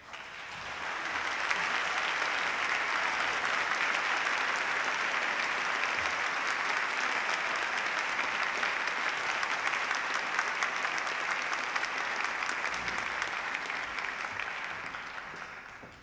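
Audience applauding: the clapping builds up over the first second or two, holds steady, and dies away near the end.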